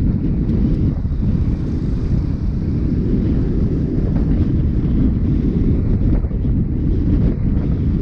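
Wind rumbling steadily on the microphone of a camera carried on a moving bicycle.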